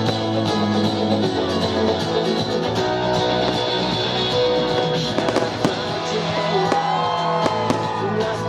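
Music with a guitar playing throughout, mixed with many short, sharp bangs and crackles of fireworks, thickest around the middle.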